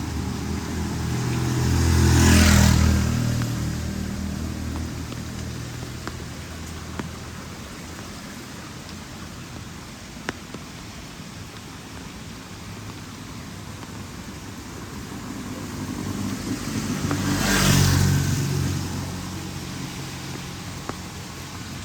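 Two motor vehicles pass by, one about two seconds in and one near the end, each engine and tyre noise rising and then fading away. Underneath is a steady hiss of rain, with a few sharp clicks.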